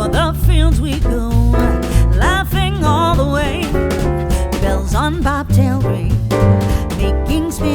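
Background music with a sung vocal line over a steady beat.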